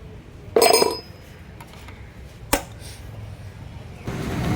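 Two metallic clinks of steel tools or parts being handled: a loud ringing clank about half a second in, then a short sharp click near the middle. A steady low rumble rises near the end.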